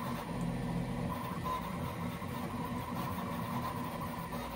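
Prusa Core One 3D printer running a print, a steady mechanical hum. The printer stands on TPU 95A ball feet, which absorb quite a bit of the vibration.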